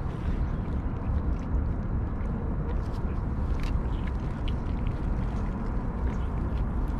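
Cats chewing and licking soft wet food from steel dishes: short, scattered wet clicks and smacks over a steady low rumble.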